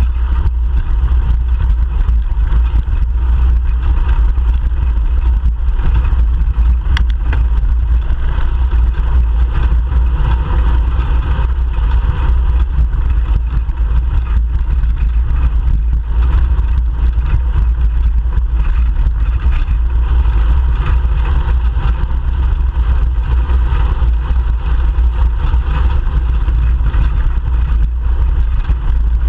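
Steady wind and road rumble on a bicycle-mounted GoPro Hero 3 Black's microphone while riding along a street, with traffic noise mixed in. A faint click about seven seconds in.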